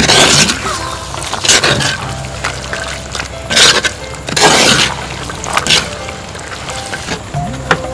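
A spoon stirring prawns and green peas in a clay cooking pot, making about six loud wet scraping strokes at uneven intervals, over soft background music.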